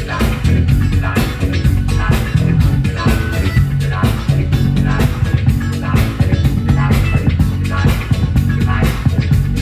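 Live rock band playing an instrumental passage, with bass guitar and electric guitar over a steady drum beat.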